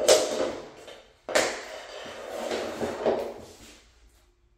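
Two sharp knocks about a second apart, each trailing off into scraping and rustling: hand flooring tools, a rubber mallet among them, being set down and moved on a vinyl plank floor. The sound fades out near the end.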